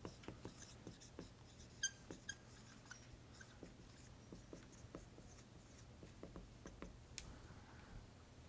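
Dry-erase marker writing on a whiteboard: faint squeaks, scratches and taps of the tip as figures and letters are written, with two sharper squeaks about two seconds in. The writing stops shortly before the end.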